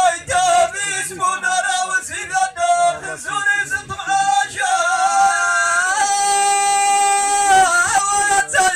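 A man singing Amazigh verse solo into a microphone, a bending, ornamented line that settles into one long held note for about three seconds, then breaks off into short phrases near the end.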